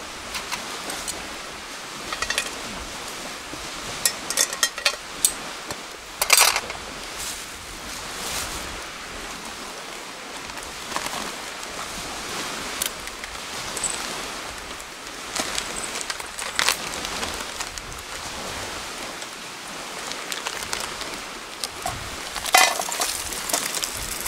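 Firewood burning in a campfire grill: a steady hiss with scattered crackles and a few sharp pops, the loudest about six seconds in and another cluster near the end.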